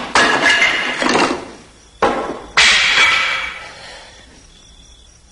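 Three sudden, loud impacts, about a tenth of a second, two seconds and two and a half seconds in; the last rings out and fades over more than a second.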